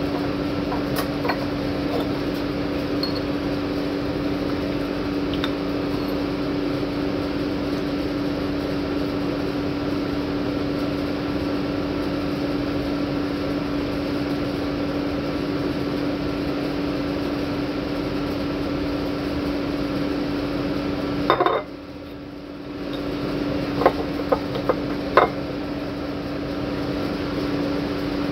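A metal strainer and glass jar clinking, with a few sharp clinks about three-quarters of the way through, over a steady electrical hum that drops out for about a second just before them.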